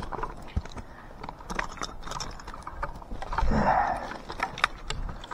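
Metal climbing hardware, carabiners and harness fittings, clinking and jangling in irregular clicks as the gear is handled and put on, with a louder rustle about three and a half seconds in.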